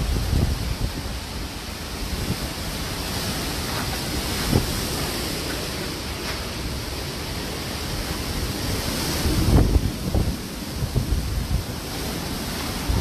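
Strong cyclone wind (Cyclone Fani) gusting and buffeting a phone's microphone, over a steady hiss of wind through trees. The heaviest gusts come about nine to eleven seconds in.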